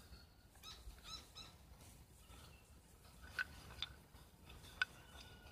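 A few faint bird chirps about a second in. Then three light, sharp clicks of a handheld horn or antler knapping tool against stone, the last one ringing briefly.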